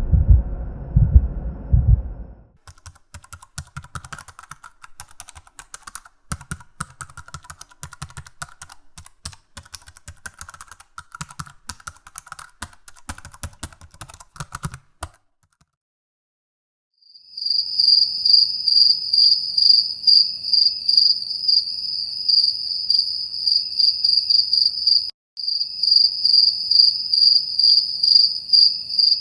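A loud low rumbling sound that stops about two seconds in, then rapid irregular keyboard typing clatter for about twelve seconds. After a short silence, cricket chirping sets in, a steady high trill in quick regular pulses.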